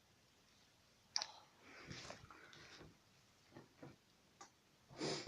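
A sharp click, then scattered short clicks and rustling of an object being handled, the loudest near the end.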